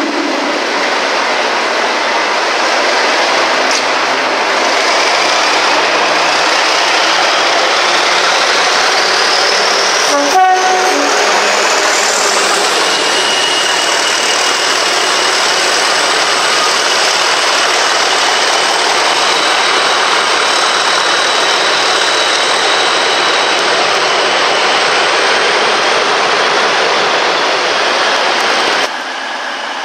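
Class 97/3 (ex-Class 37) diesel locomotive with an English Electric V12 engine powering past at close range. The engine note climbs over the first few seconds and a high turbocharger whistle rises steadily in pitch until about twelve seconds in, with a short sharp sound about ten seconds in. After that it settles into a loud steady running sound.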